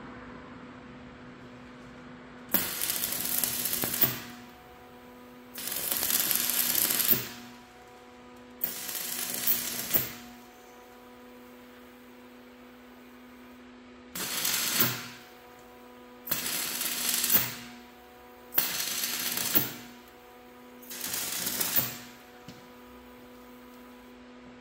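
Jointer (hand-feed surface planer) running with a steady hum, cutting seven times as wood is passed over its cutterhead. Each pass is a loud burst of cutting noise lasting about a second, and the hum carries on between passes.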